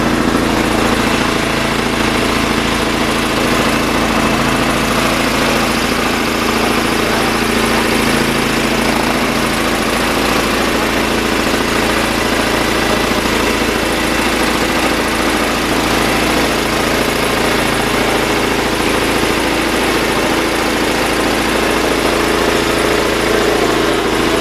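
Engine-driven air compressor running steadily, pumping up its tank pressure.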